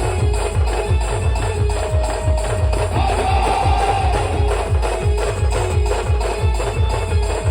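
Instrumental band music, loud: a fast, heavy bass-drum beat with sharp percussion strokes and a melody line held over it.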